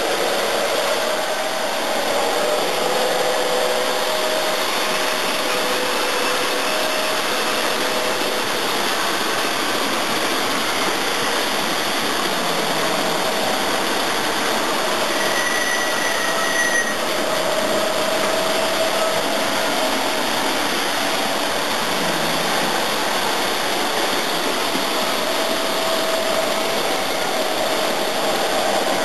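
O gauge electric model train running on its track layout: a steady whirring rumble of motor and wheels, with a few faint steady tones over it.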